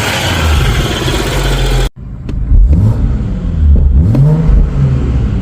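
BMW N55 turbocharged straight-six of a 2013 335i running loudly with a lot of hiss, cutting off abruptly about two seconds in, then revved twice with the pitch rising and falling each time. The owner is chasing a squeal from the belts and pulleys at the front of the engine.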